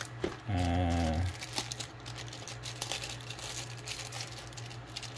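Clear plastic zip-top bag of small fittings crinkling as it is handled and opened, a stream of short crackles, with a short hummed voice about half a second in.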